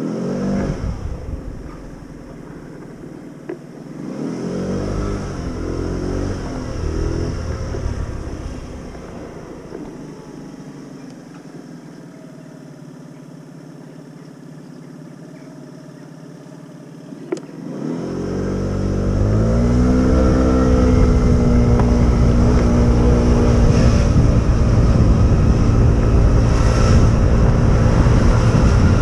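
Motorbike engine ridden at low speed: it revs up and eases off a couple of times, then about eighteen seconds in climbs in pitch and settles into a steady, loud run. A heavy low rumble of wind on the microphone runs under it.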